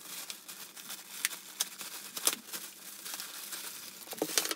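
Crinkly white wrapping being pulled off and crumpled while unwrapping a new handbag: an irregular run of crackles and rustles, loudest about two seconds in and again near the end.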